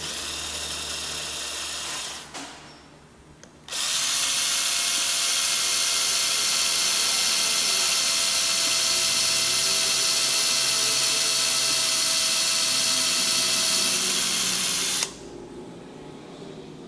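Electric drill boring out the end fitting of an old choke cable: a short run of about two seconds, a brief stop, then a long steady whining run of about eleven seconds that stops shortly before the end.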